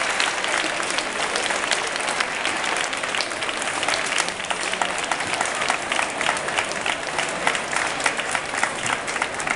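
Audience applauding: dense clapping that thins in the second half into scattered, separate claps.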